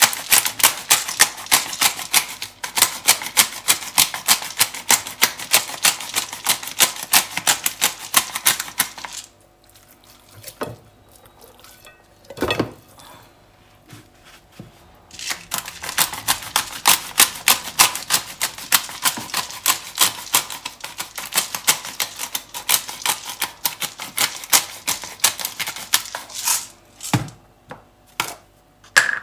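Five-peppercorn grinder being twisted, giving a rapid run of clicks for about nine seconds, a pause with a single knock, then a second run of about twelve seconds.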